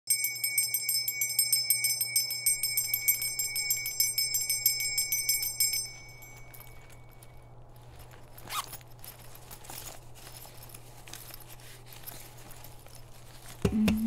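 Brass puja hand bell rung rapidly and continuously for about six seconds, then left to ring out and fade. Afterwards only a few faint knocks over a low steady hum.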